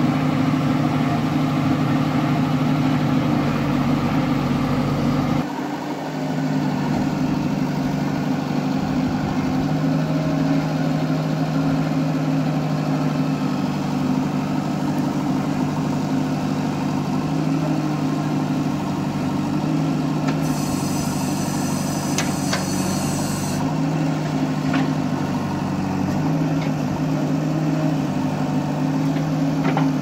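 JCB backhoe loader's diesel engine running at a steady speed while the rear backhoe digs a trench, with a brief drop in level about five seconds in.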